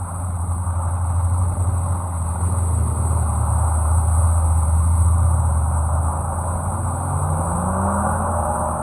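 Four-wheel-drive vehicle's engine running with a heavy low rumble, rising in pitch near the end as it revs up.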